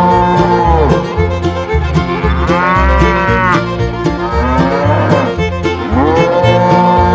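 Cattle mooing, about four long moos that rise and fall in pitch, over background music with a steady beat.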